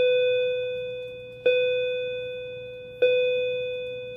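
A bell-like chime sounding one note, struck three times about a second and a half apart, each strike ringing and fading slowly, over a faint low hum.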